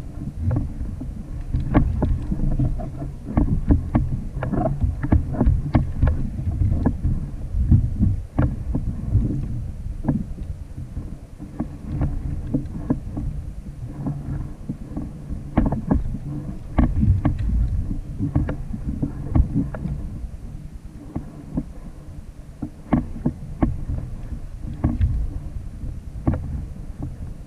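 Water slapping against a plastic kayak hull, over a steady low rumble of wind on the microphone. Irregular knocks and clicks run through it.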